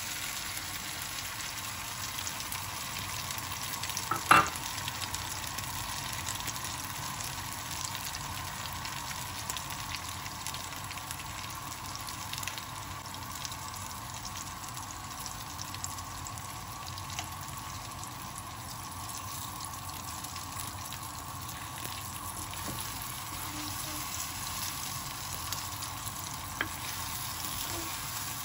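Beaten eggs sizzling as they fry with diced potatoes in a non-stick frying pan, stirred with a wooden spatula. A sharp knock about four seconds in and a fainter click near the end.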